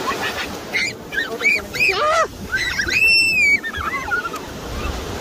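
Children squealing and shrieking in a string of short high calls, the loudest a long high shriek about three seconds in, over the steady wash of ocean surf.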